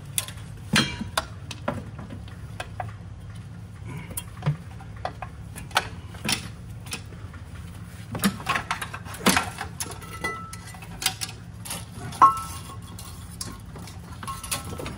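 An exhaust manifold being worked loose and maneuvered out of a truck's engine bay: irregular metal clinks and knocks as it shifts against the engine and surrounding parts, over a steady low hum.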